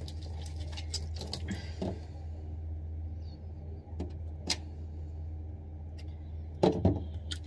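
Handling noises as wet hair is squeezed and a plastic bottle is handled: scattered soft clicks and knocks, with a louder cluster of knocks near the end, over a steady low hum.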